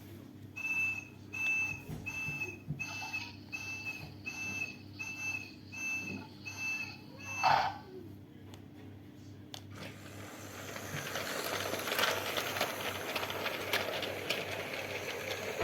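A high electronic beep repeating about one and a half times a second for some seven seconds, ending in a short sweeping tone. From about ten seconds in, a rising rush of train noise builds as a train approaches.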